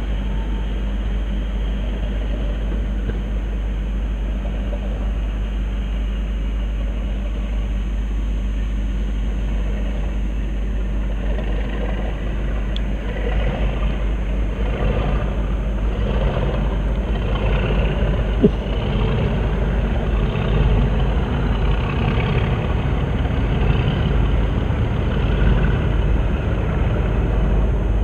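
Class 37 diesel locomotives with English Electric V12 engines running as the test train pulls away, growing louder about halfway through.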